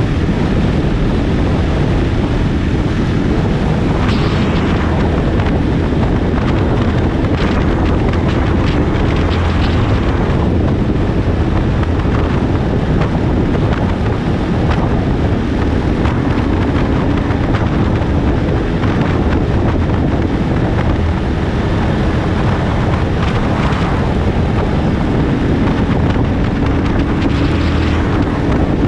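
Loud wind rushing over a GoPro's microphone on a moving motorcycle, with the motorcycle's engine running steadily underneath.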